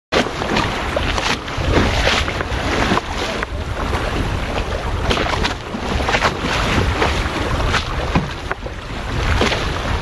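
Wind buffeting the microphone over the rush of water along a Goat Island Skiff's hull under sail, with irregular splashes as the small sailing dinghy meets small waves.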